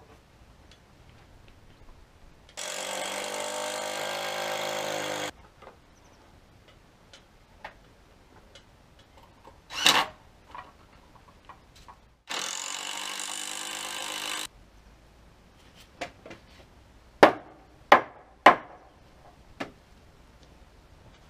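A cordless drill driving screws into pallet wood, in two steady runs of about three seconds each. Sharp knocks follow, the loudest three close together near the end.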